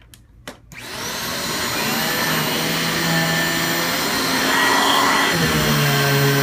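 Riccar Retriever vacuum cleaner switched on: a couple of clicks, then the motor spins up with a rising whine and runs steadily, its tone shifting about five seconds in.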